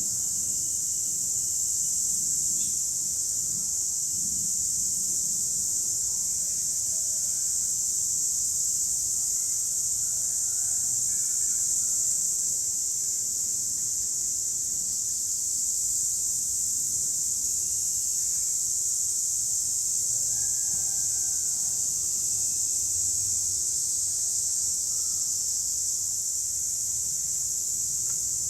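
A chorus of cicadas giving a steady, unbroken high-pitched buzz, with faint short chirps in the background.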